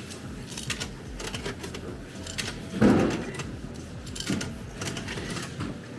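Mechanical clicking and clatter at a paid public toilet's entry machine, with one louder thump about three seconds in.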